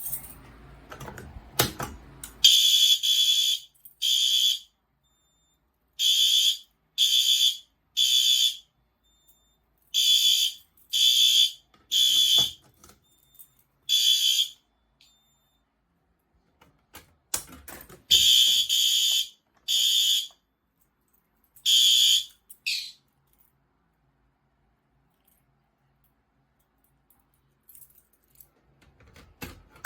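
Fire alarm horns sounding in short bursts of a high, piercing tone, several of them in groups of three about a second apart like the temporal evacuation pattern, with silent gaps between groups and a few short clicks and knocks. This is a fire alarm system in walk test, its horns sounding briefly as devices are tripped.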